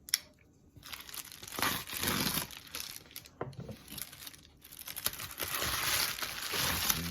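Knife packaging being unwrapped by hand: irregular crinkling and tearing, with a sharp click just after the start.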